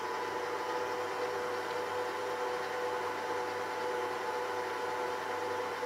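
Electric stand mixer running steadily below top speed, its motor giving a steady whine over an even hum as the flat beater creams butter in a stainless steel bowl.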